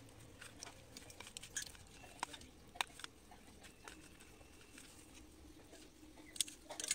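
Faint wet clicks and light taps of fingers rubbing spice masala into raw fish pieces on a steel plate, with a quick cluster of sharper clicks near the end as small fish are handled in a steel colander.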